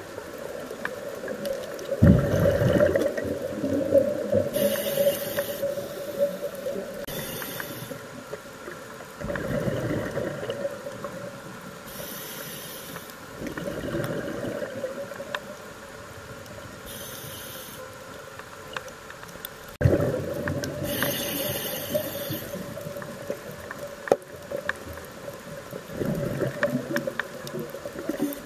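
Scuba diver breathing through a regulator underwater: short high hisses on each inhalation alternate with rushing, bubbling exhalations, roughly every five to six seconds, over a steady low hum.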